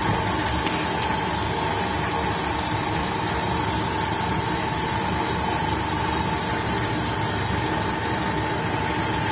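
Round stainless steel vibro screener (vibrating sieve) running, its vibration motor giving a steady hum with a high whining tone over it as the powder is shaken on the screen.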